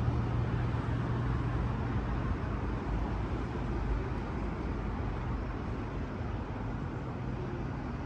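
Steady low engine drone over a rumbling background hum, easing off slightly toward the end.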